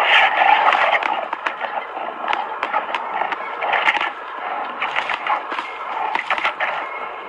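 Two brown bears fighting: a dense, rough scuffle with many sharp cracks like snapping sticks and undergrowth. It is loudest at first and dies down in the second half as the bears break apart.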